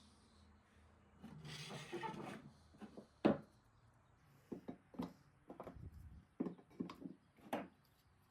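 Wood rubbing for about a second, then a run of about a dozen light knocks and clicks, the loudest about three seconds in: spring clamps being handled against a plywood rack.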